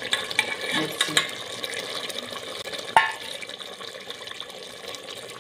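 Thick meat gravy bubbling and sizzling in a pot, with a few soft taps as whole green chillies are slid in from a steel plate. One sharp knock about three seconds in, the plate against the pot; after it the hiss settles to a steady simmer.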